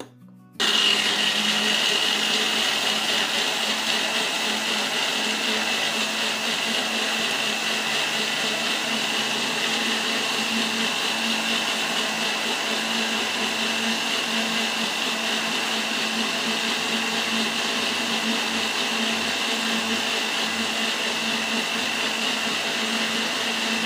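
Electric countertop blender switched on about half a second in and running steadily, grinding shallots, garlic, ginger and galangal with a little water into a smooth paste. Its motor gives a steady high whine over a low hum.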